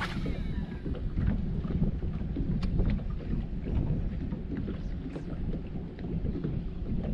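Wind rumbling on the microphone, with water slapping against the hull of a small fishing boat and scattered light knocks. A sharper click comes right at the start.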